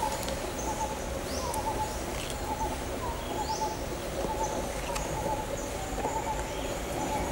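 Forest birds calling: repeated low cooing notes throughout, with a few brief rising high chirps, over a steady low background hum.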